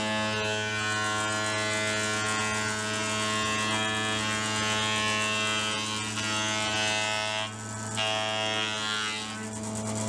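Electric surface planer (jointer) running with a steady hum while its cutter block planes a hardwood board fed across the bed. The cutting noise drops briefly about three-quarters of the way through, then picks up again.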